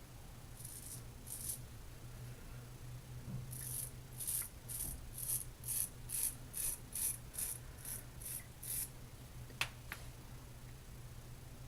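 Razor strokes scraping lathered stubble on the cheek: a run of short, crisp rasps at about two a second, then a single sharp click near the end.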